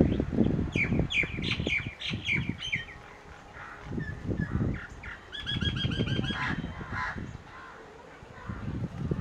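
Wind buffeting the microphone in gusts, with a bird calling two quick runs of short, high notes: one about a second in, another just past the middle.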